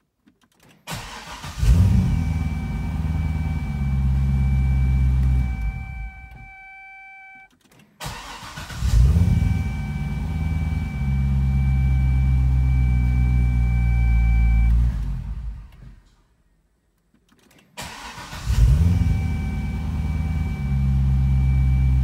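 2005 Corvette C6's LS2 V8 started three times in a row with the push button. Each time it cranks for about a second, catches with a quick rev flare and settles to idle, with a steady high tone over it. The first two starts are switched off after several seconds, and the third keeps idling. It fires at once every time, the no-start having been cured by a fresh key-fob battery.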